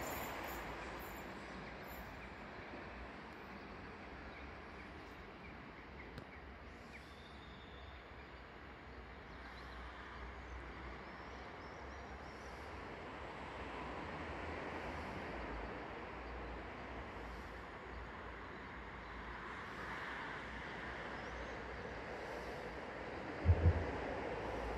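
Faint, steady rumble of a distant electric train on the tracks, with the low hum of station ambience. Two sharp thumps near the end are the loudest sounds.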